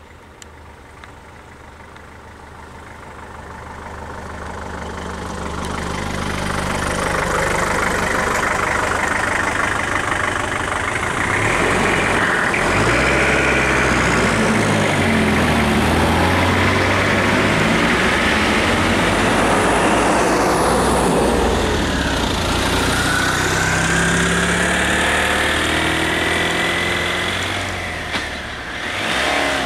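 Engine of a stopped Isuzu box truck running close by. It grows louder over the first several seconds, then stays loud, with a rushing noise over it and some changes in engine pitch.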